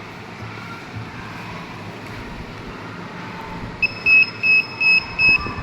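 Electronic beeper of an Arduino ultrasonic-sensor alarm sounding a run of short, high-pitched beeps, about three a second, starting near the end after a few seconds of steady background noise. The beeping is the alarm going off because something has come close to the ultrasonic sensor.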